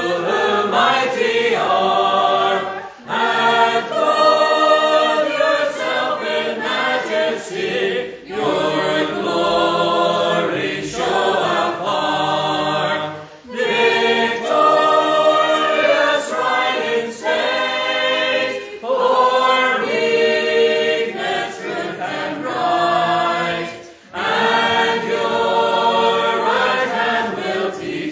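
A congregation singing a metrical psalm unaccompanied, the voices dipping briefly between lines every few seconds.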